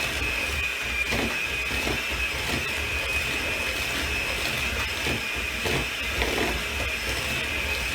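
Electric mixer running steadily, beating butter, sugar and eggs, with a steady high whine over its motor hum.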